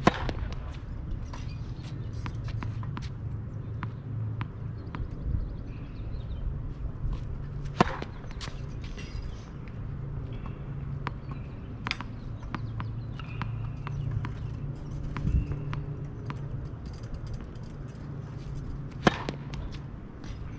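Tennis ball struck by a racket: four sharp hits several seconds apart, with fainter clicks between, over a steady low rumble.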